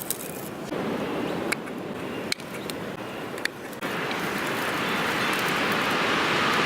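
Wind gusting, a rushing noise that swells steadily louder from about four seconds in. Before it, a few sharp clicks.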